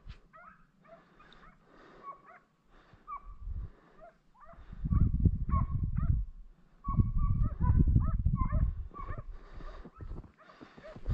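A pack of hunting hounds yelping and baying at a distance, many short, high calls overlapping, as the hounds trail a rabbit. A low rumbling noise swells about five seconds in and again from about seven to nine seconds.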